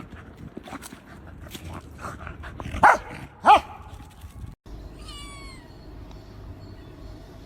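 A pet animal's voice: two short, loud calls about half a second apart, then after a cut a fainter, higher call that falls in pitch.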